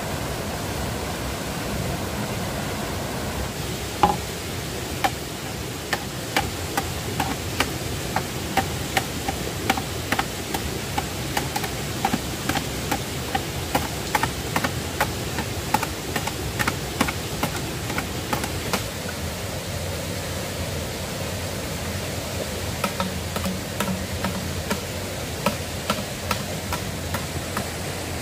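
Rushing mountain stream running over rocks. Over it, from about four seconds in, a machete chops into a green bamboo pole in a steady run of knocks, about two a second. The run stops about two-thirds of the way through, and a few scattered knocks follow near the end.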